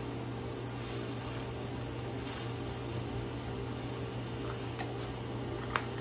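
TIG welding arc burning on a freshly sharpened tungsten electrode: a steady, quiet hiss with a constant low hum underneath. Two faint clicks come near the end.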